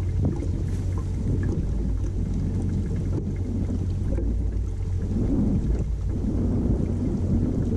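Wind rumbling on the microphone of a camera on an open fishing boat: a steady low rumble with nothing clear above it.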